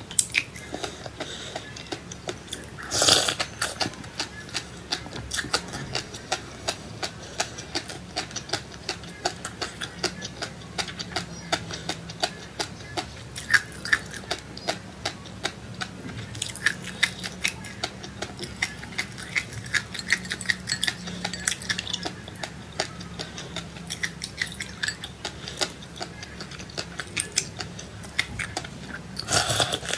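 Close-up chewing and crunching of seeds: a dense, irregular run of small crackling clicks, with a louder crunch about three seconds in and another near the end.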